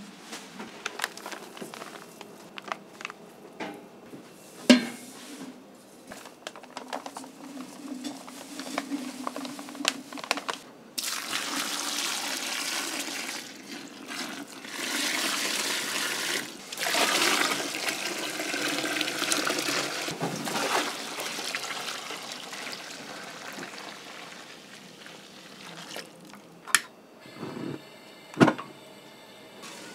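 Water running into a kitchen sink for about ten seconds in the middle, amid clinks and knocks of kitchen work; a sharp knock about five seconds in and two more near the end.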